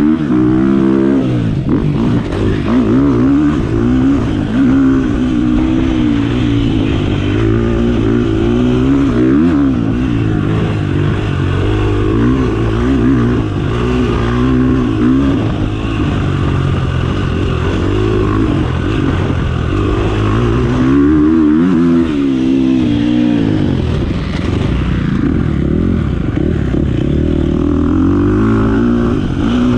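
Dirt bike engine ridden hard, its pitch repeatedly climbing and dropping as the rider works the throttle and shifts gears, with a couple of deeper dips in revs about three-quarters of the way through.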